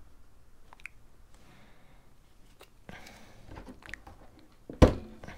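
Light clicks and crunchy handling noise of hands fitting a small prop washer onto a plastic propeller, then one sharp, loud knock near the end.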